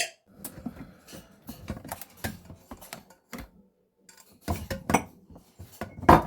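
Irregular light clicks and clattering knocks of small hard objects, busier about four and a half seconds in and again near the end.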